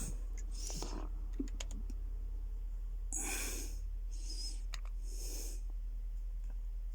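Steady low-pitched electrical hum from a Dolby CP200 cinema sound system's output: a tone near 50 Hz with a second just under 100 Hz, holding an even level. A few short breathy rustles and faint clicks come and go over it.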